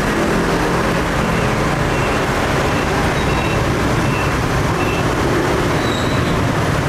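Steady street traffic noise, a dense even rumble, with a few faint short high beeps.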